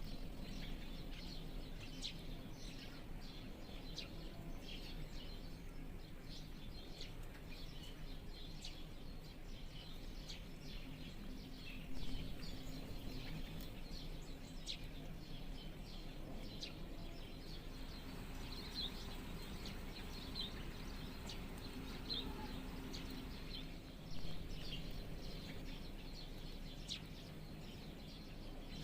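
Thrushes calling, with many short chirps scattered throughout, over a steady low background hum.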